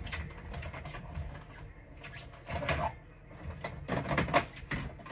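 Paper and crafting tools being handled on a work table: irregular rustles, taps and clicks, the busiest stretches a little after halfway.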